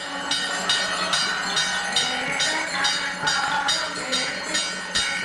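Temple puja percussion: ringing metallic strikes in a steady beat of about two and a half a second, over a held ringing tone.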